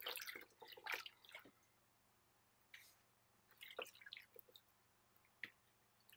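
Hands washing vegetables in a bowl of water: short splashes and drips, busiest in the first second and a half, then a few scattered drips and light knocks.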